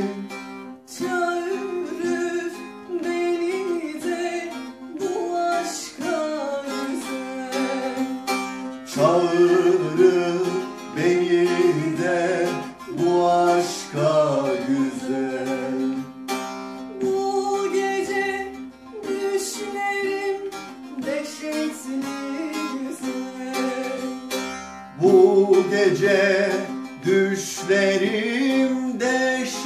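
Bağlama (saz) played with a plectrum: a fast, densely strummed and picked melody forming an instrumental passage of a Turkish folk song.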